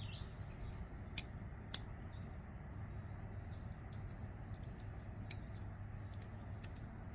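Small metal parts of a folding knife's button pivot-lock mechanism being handled during disassembly: three sharp clicks and scattered faint ticks over a steady low hum.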